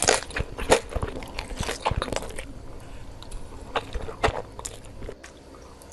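Close-miked eating: a person biting and chewing crunchy food, with a quick run of crisp crunches and wet mouth clicks over the first couple of seconds, then only a few scattered ones.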